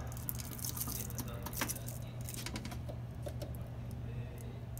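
Light clicking and rattling of multimeter test leads and probe tips being handled at a door wiring connector, as short scattered clicks over a steady low hum.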